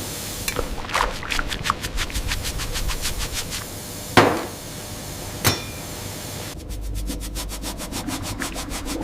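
Handling sounds from restoration work: a run of light clicks and taps, a sharp knock about four seconds in and a smaller one a second later. Near the end comes fast, even ticking, several a second, over a steady low hum.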